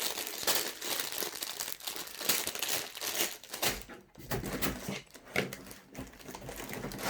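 Sealed plastic bags of Lego pieces crinkling and rustling as they are handled and lifted out of the box, with irregular crackles throughout.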